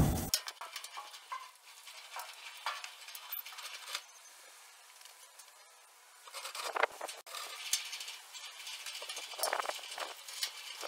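A car door slams shut once, sharply, right at the start, then faint scattered clicks and rustles.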